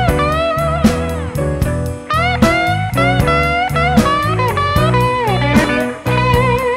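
Electric blues band in an instrumental break: a lead guitar plays bending, sliding notes over a walking bass and a steady drum beat.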